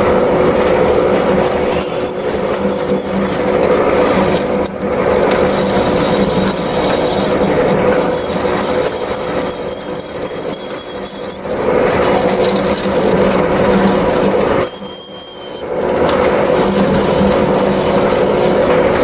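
Metal lathe running while a cutting tool cuts a groove into a pulley workpiece: a steady machine hum under a high-pitched squeal from the cut. The cutting sound drops away for about a second near 15 s in, then resumes.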